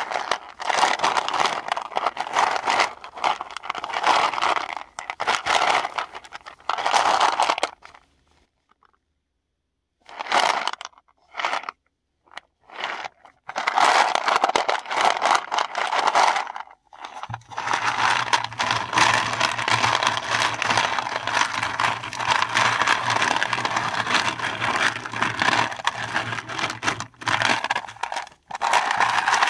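Paradichlorobenzene mothballs being crushed and crumbled by hand, with a dense crunching and scraping of the tablets breaking into grit. It stops for a second or two about a third of the way in, comes back in short bursts, then runs on steadily.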